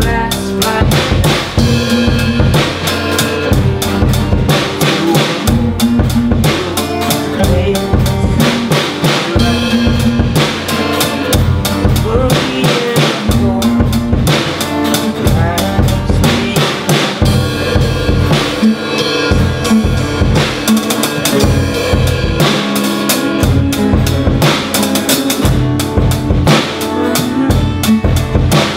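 Rock band playing live: a drum kit keeps a steady beat with kick, snare and cymbal hits under strummed electric and acoustic guitars.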